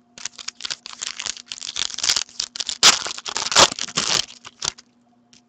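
Foil wrapper of a hockey card pack being torn open and crinkled by hand: a quick run of crackling rustles that stops about three-quarters of the way through.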